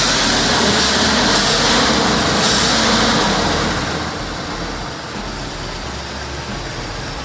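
1975 Chevrolet Impala's V8 engine running just after being started up for the first time in over three years. It runs loudly at first, then gets quieter about four seconds in, and sounds smooth.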